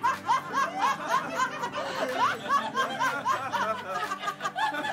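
Laughter after a joke's punchline: a quick run of short 'ha' pulses, about five a second, going on without a break.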